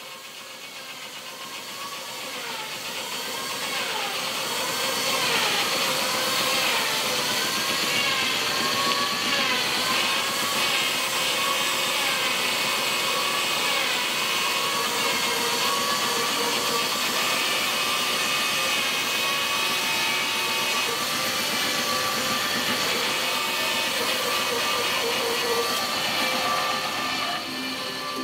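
Large bandsaw cutting along a curve through a thick block of yellow cedar, the blade and motor running steadily. The cutting note wavers in pitch for the first several seconds as the wood is fed, and the sound fades in at the start.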